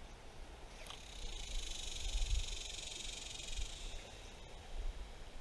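Cicada buzzing: a steady, high, hissing drone that swells about a second in and fades away about four seconds in.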